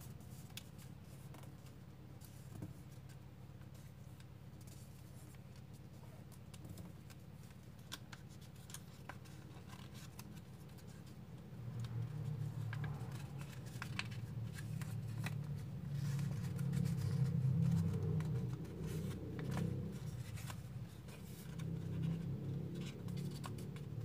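Square origami paper crinkling and crackling as fingers fold and press creases into it, in short scattered rustles. A low rumble underneath grows louder about halfway through.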